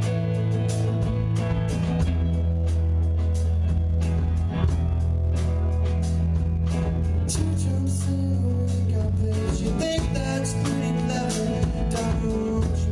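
A live rock band playing amplified electric guitars and a drum kit, with a steady drum beat and cymbal hits over held low bass notes.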